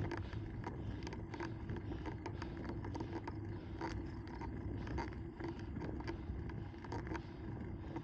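Bicycle rolling on asphalt, recorded from the handlebars: a steady rumble from the tyres and road, with many small irregular clicks and rattles.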